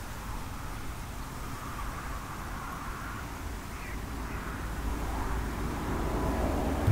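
Outdoor field ambience: wind buffeting the microphone in an irregular low rumble that grows louder toward the end, with a faint hiss of rustling vegetation.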